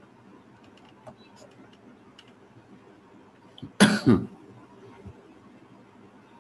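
A person clears their throat in two quick bursts close together about four seconds in. Otherwise quiet room tone with a few faint clicks.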